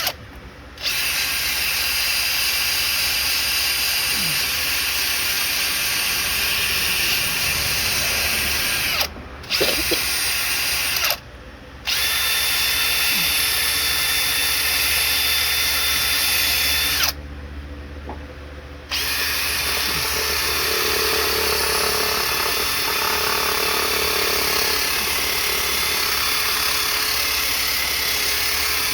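Power drill running in long stretches, stopping briefly three times, as it scours rust and old gasket crud off the exhaust port surfaces of a Chevy 305 small-block's cylinder head.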